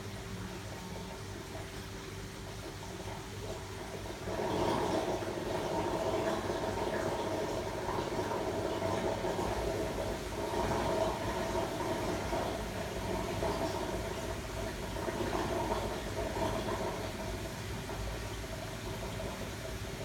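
Aquarium filter or pump running: a steady hum over rushing water, growing louder and more turbulent about four seconds in.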